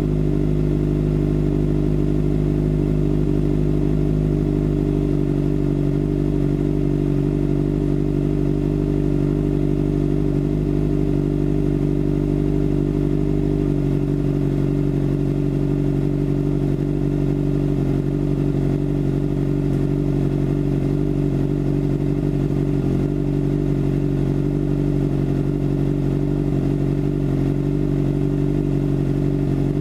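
2013 Kawasaki ZX-6R 636's inline-four engine idling steadily through a Racefit carbon slip-on exhaust, with no revs.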